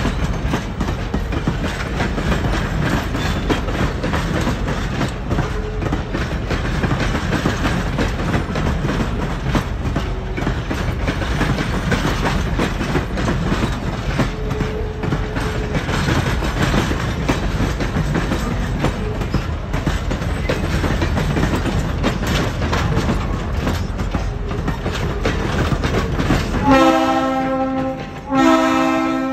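Passenger coaches rolling past close by: a steady rumble with the clatter of wheels over rail joints. Near the end come two blasts of a multi-note train horn, each about a second long.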